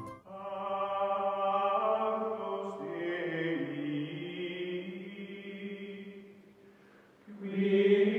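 Outro music of choir-like chanting voices holding long notes in slowly shifting chords. It fades out about six seconds in and comes back louder near the end.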